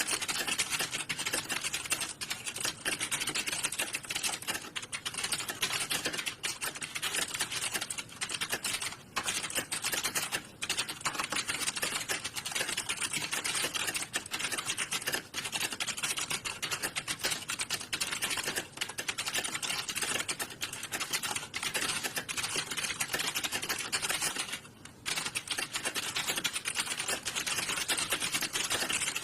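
Fast, continuous typing on computer keyboards: a dense clatter of key clicks, with a brief pause about 25 seconds in.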